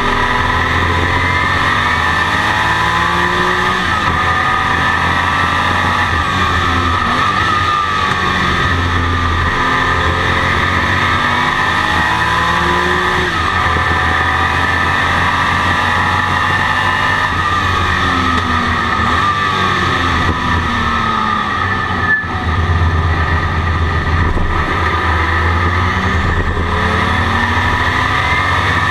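Porsche 935's turbocharged flat-six racing engine heard from inside the cockpit, pulling through the gears on track, its pitch rising and falling with the revs. There is a brief dip in the sound about three-quarters of the way through.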